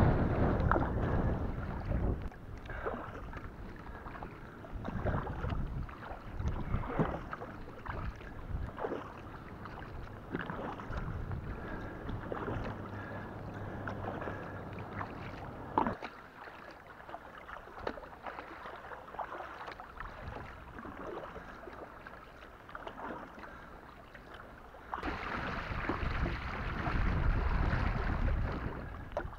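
Double-bladed kayak paddle strokes dipping and splashing in the water, in a steady rhythm of about one a second. Over the last few seconds, wind rushes across the microphone on choppy open water.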